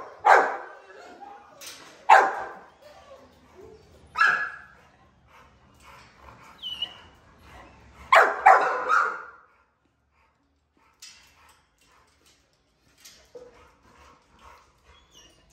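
XL American bully dogs in kennel runs barking: a handful of loud single barks in the first four seconds, a longer double bark around eight seconds in, then only faint sounds.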